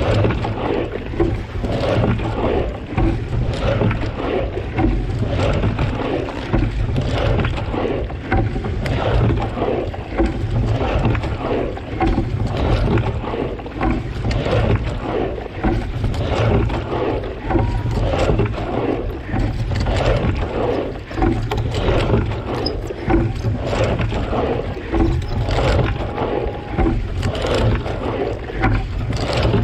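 Water slapping and sloshing against the hull of a single racing scull under way, with the oar blades splashing in and out of the water, over a steady low rumble. Heard close to the waterline.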